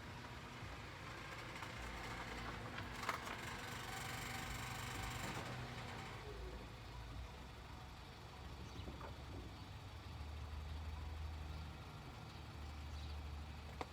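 A motor vehicle engine humming low and steady, with a louder stretch of hiss from about three to six seconds in and a single sharp click near three seconds.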